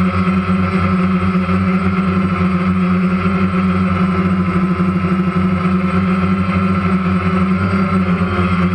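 Camera drone's electric motors and propellers running steadily, a constant pitched whine with a slight flutter.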